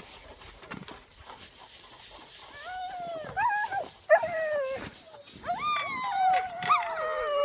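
Sled dogs whining in short rising-and-falling cries from about two and a half seconds in, then one dog starting a long drawn-out howl around five and a half seconds in, with others joining near the end.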